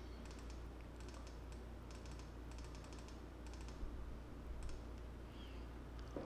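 Quick clicks from computer input, a mouse and keyboard, coming in short clusters of several clicks each, over a steady low hum.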